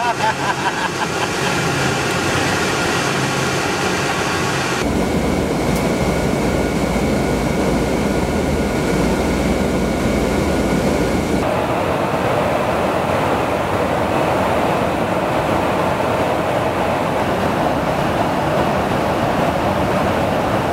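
Steady engine and airflow noise inside a KC-135R Stratotanker in flight. It comes in three spliced takes whose tone changes abruptly about 5 and 11 seconds in; the middle take carries a faint high whine.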